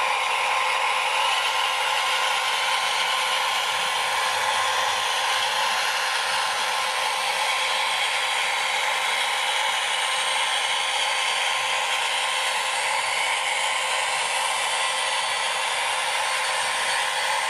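Model diesel locomotive's onboard sound decoder playing a diesel engine running sound through its tiny speaker: a steady, tinny drone with no bass.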